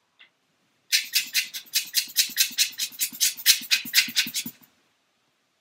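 Quick, even back-and-forth strokes of a hand tool cutting away the plastic engine block of a scale model kit, about five strokes a second for some three and a half seconds, then stopping.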